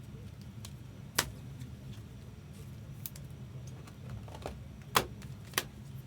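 Trading cards and rigid plastic toploaders being handled, giving a handful of sharp clicks and taps at uneven intervals, the loudest about five seconds in, over a low steady hum.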